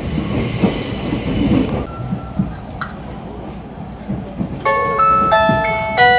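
Sleeper train's low running rumble, with a steady high ring for the first couple of seconds. From about four and a half seconds in, a melody of bell-like chime notes plays over the train's public-address system, the signal that an onboard announcement is coming.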